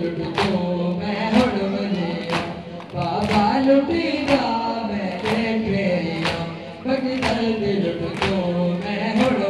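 Men chanting a noha (Shia lament) in chorus, with rhythmic chest-beating (matam) in unison, one sharp strike about every second.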